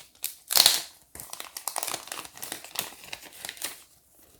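Toy packaging being opened and handled: a loud tear about half a second in, then a few seconds of crinkling that dies away near the end.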